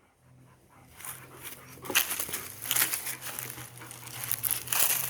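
Irregular crunching and crackling, starting about a second in, of a pallet-laden hand-cart trailer being pulled over rough ground by a dog.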